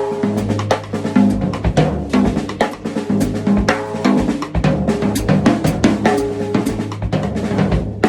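Drum kit played as a continuous groove: bass drum, snare and toms, with the hi-hat pedal stepped on quarter notes underneath, so the foot hi-hat falls in and out of syncopation with the pattern played on top.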